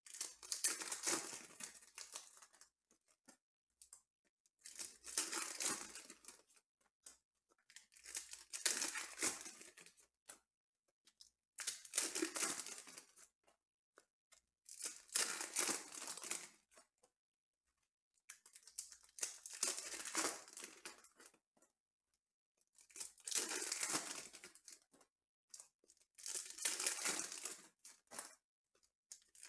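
Foil trading-card pack wrappers being torn open and crinkled, one pack after another: about eight tearing bursts of a second or two each, with short pauses between them.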